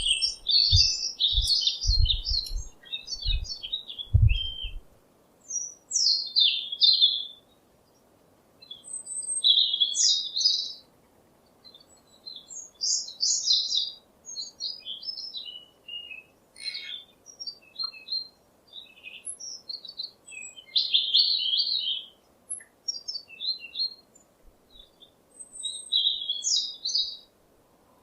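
Small birds chirping and twittering in repeated bursts of quick, high notes, with short pauses between bursts. A few low thumps come in the first few seconds.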